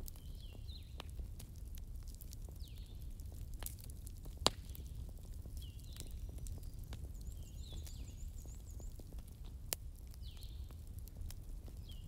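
Wood fire burning with a low steady rumble and scattered crackles, two sharp pops standing out, one about four and a half seconds in and one near ten seconds. A faint high call repeats every second or two behind it.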